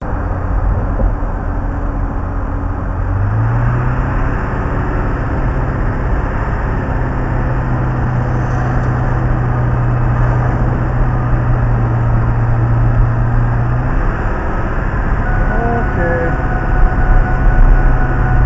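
Fire truck's engine and road noise heard from inside the cab while driving, a steady low drone with a constant hum through most of it.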